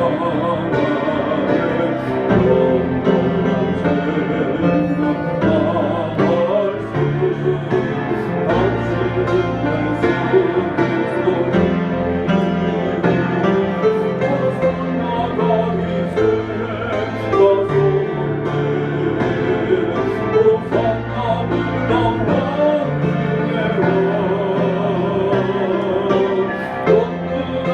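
Church worship music: a voice singing with a wavering vibrato over instrumental accompaniment with held bass notes.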